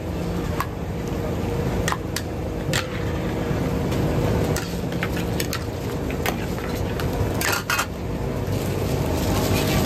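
Busy market ambience: a steady low hum under a noisy background, with scattered sharp clicks and clatter and a short cluster of knocks about three-quarters of the way through.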